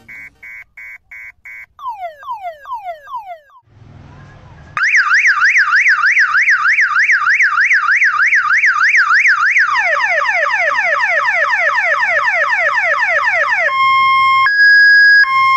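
A 12-volt six-tone electronic siren horn switches through its tones. It opens with a quick run of short beeps, then a few falling sweeps, then a fast up-and-down yelp, then a quicker run of falling sweeps, and near the end a hi-lo two-tone.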